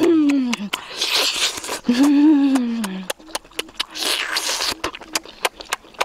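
A boy's exaggerated eating noises: two falling, hummed 'mmm' sounds of relish, with breathy sucking sounds between them and many quick wet mouth clicks.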